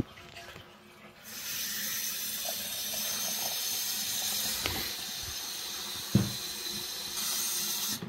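Chrome bathroom basin tap turned on, water running steadily from the spout into a ceramic washbasin. The flow starts about a second in and cuts off suddenly near the end as the tap is turned off, with a single knock about six seconds in.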